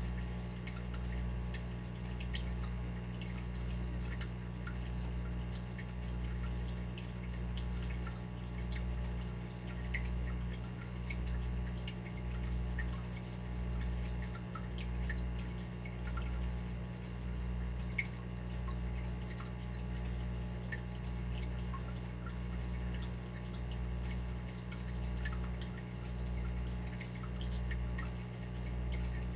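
Water dripping in small, irregular plinks over a steady low hum that swells and fades about once a second.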